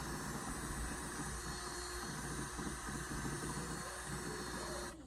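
Electric drill running under load, boring a mounting hole, then cutting off sharply just before the end.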